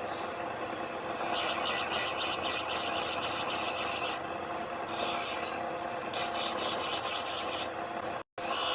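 Rasping, rubbing strokes of hand abrasive work on an old rusted knife, coming in spells of harsher rasping between quieter rubbing. The sound breaks off for an instant near the end.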